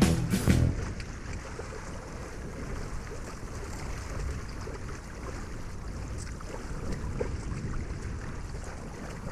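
Wind buffeting the microphone and water rushing along the hull of a small trimaran sailboat under way, a steady noise.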